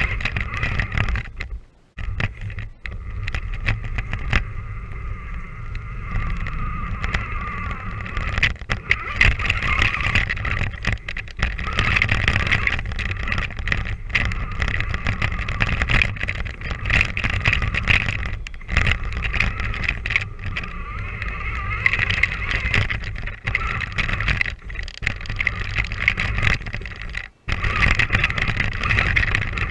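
Danchee RidgeRock RC rock crawler's electric motor and gears whining as it drives through snow, the pitch rising and falling with the throttle. Heard from the onboard camera, with a low rumble and frequent knocks as the truck bounces along. The drive cuts out briefly twice, about two seconds in and near the end.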